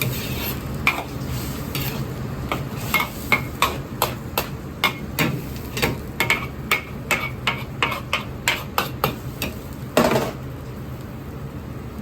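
Metal ladle striking and scraping a wok as food is stirred, with sharp clanks about two a second over a steady low hum, then one louder, longer scrape about ten seconds in.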